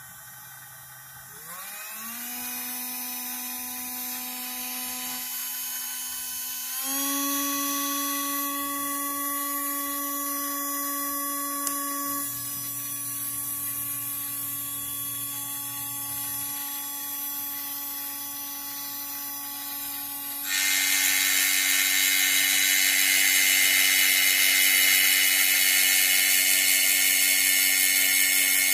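The small electric motor of a Sherline lathe tool-post grinder spins up with a rising whine and then runs steadily, stepping up to a higher speed about seven seconds in. About two-thirds of the way through, a loud hiss joins the whine as the grinding wheel starts cutting a small part held in the lathe chuck.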